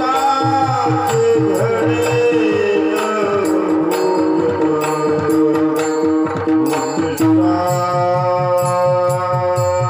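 Devotional kirtan music: a melody line over held tones, a fast hand-drum pattern, and regular cymbal-like clicks. Near the end the melody settles into a long sustained chord.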